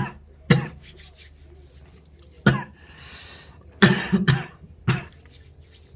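A man coughing in short, hard bursts after inhaling from a vape cartridge: two coughs at the start, one about two and a half seconds in, then three close together around the four- to five-second mark.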